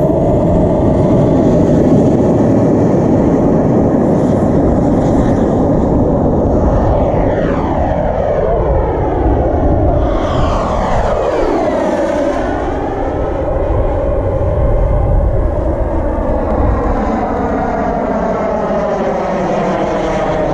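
Kingtech K80 G2 model jet turbine on a JMB MB-339 radio-controlled jet, running at high power through the take-off roll and climb-out: a steady jet rush. About halfway through it gives a sweeping whoosh as the jet passes by and climbs away.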